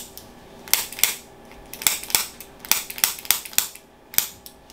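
Chiropractic tapping adjustment on the clavicle area: about nine sharp clicking taps at uneven spacing, given to loosen the joint.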